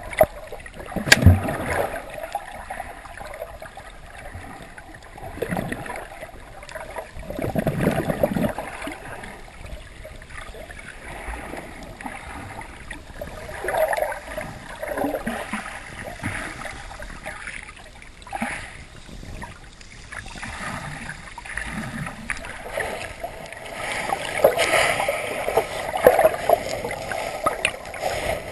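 Sea water sloshing and gurgling around a camera held just below the surface in shallow water, in irregular surges, with a sharp knock about a second in.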